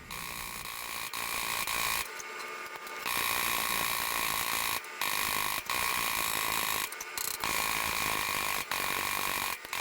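Rapid, continuous tapping of a chipping hammer on steel sheet petals, blending into a steady metallic rattle with a ringing tone, broken by a few short pauses.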